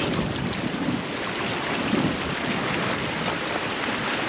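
Steady rush of fast-flowing river water below a dam, with a hooked blue catfish splashing at the surface as it is played in, loudest near the start and again about two seconds in.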